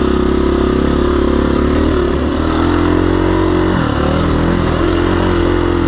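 KTM 350 EXC-F single-cylinder four-stroke dirt bike engine running under throttle on a trail ride, its pitch mostly steady with two brief dips where the throttle eases off.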